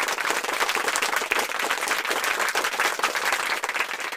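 Crowd applause with many hands clapping, cutting in and out abruptly like an inserted applause sound effect.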